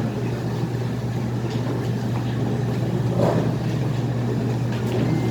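Steady low hum with a constant background rush, unchanging throughout, with a faint brief sound about three seconds in.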